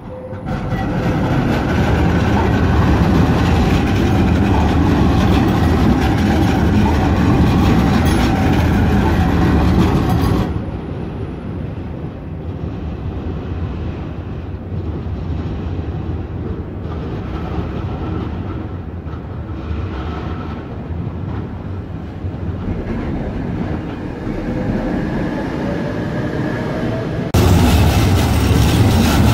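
Electric street trams running on the rails: a steady rolling rumble with a whine from the motors and wheels. It drops away suddenly after about ten seconds to a quieter tram approaching with a rising whine, then jumps loud again near the end as a tram passes close by.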